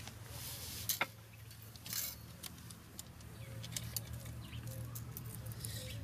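Handling noise from tools and a wooden stick: scattered sharp clicks and short rustles, the loudest about a second in and again at two seconds, then lighter ticking, over a low steady hum.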